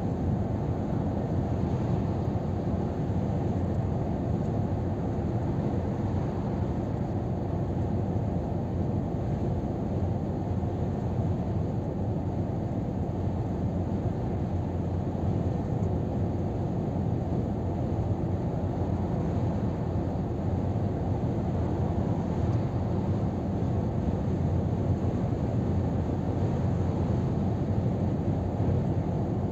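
Steady low rumble of a Scania R500 truck cruising at motorway speed, heard from inside the cab: engine drone mixed with road noise, unchanging in level.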